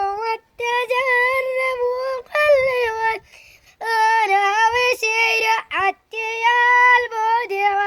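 A child's high voice singing a traditional Arabic song unaccompanied, in long held, ornamented phrases broken by short pauses for breath.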